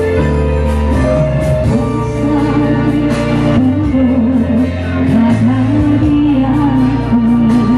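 A woman singing into a microphone over a Yamaha PSR-S775 arranger keyboard playing bass and a drum beat. Her voice comes in about a second or two in, with held notes and vibrato.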